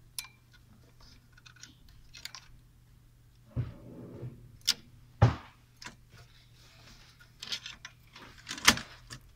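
Handling noise of a fan cable and its plastic connector being worked around a motherboard fan header inside a desktop PC case: scattered light clicks and rattles with a few louder knocks, the loudest near the end.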